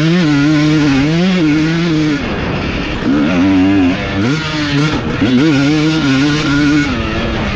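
Single-cylinder two-stroke engine of a 2020 Husqvarna TC 250 motocross bike being ridden, its note rising and falling as the throttle opens and shuts, with short lulls about two and four seconds in.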